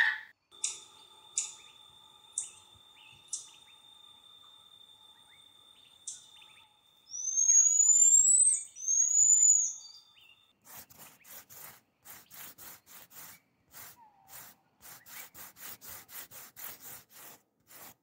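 Common marmoset calling: a few short, sharp high chirps, then two loud, high whistles that glide up and down near the middle. In the last part a rapid, even train of short clicks follows, about three a second.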